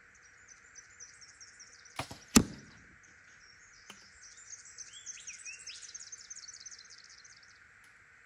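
A bow shot: a sharp snap of the release about two seconds in, then less than half a second later a louder sharp crack with a brief ringing tail as the arrow strikes the target. Birds chirp and trill throughout, busiest after the shot.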